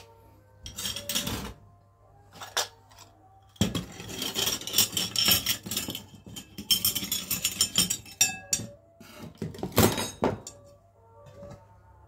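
Dishes and utensils clinking and clattering in irregular bursts, with a denser run of clatter and rustling from about four to eight seconds in.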